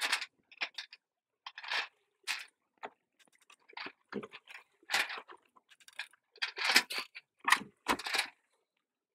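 Irregular knocks, clunks and scrapes as hands rummage inside a sailboat's deck locker and handle its hatch lid, separated by short silent gaps. The loudest cluster comes about seven to eight seconds in.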